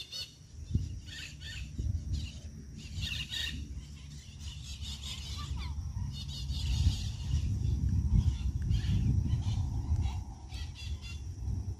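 Birds chirping and calling in short notes over a low rumble of wind on the microphone. The wind gets louder about halfway through.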